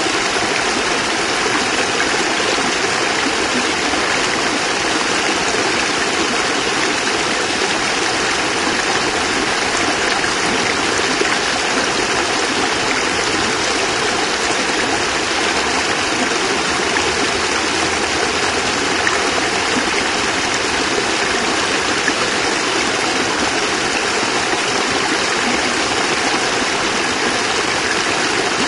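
A small cascade of water falling and splashing steadily, a continuous even rushing with no breaks.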